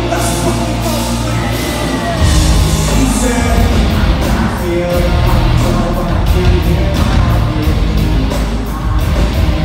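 Live rock band playing loud: electric guitars, bass, drums and a singing voice through a large hall's PA. In the second half the drummer's cymbals strike in a quick even beat, about four hits a second.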